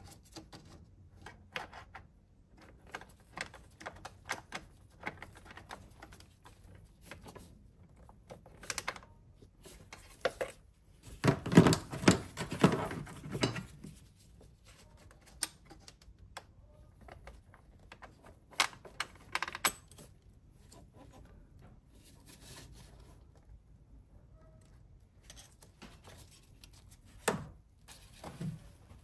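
Metal hand tools clicking and clinking on bolts as the intake manifold bolts are undone, with a louder burst of clatter near the middle and two sharp knocks near the end.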